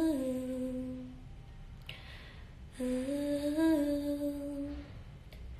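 A young woman humming a slow melody unaccompanied: one long held note, a quick breath in, then a second long held note with a slight lift in pitch partway through.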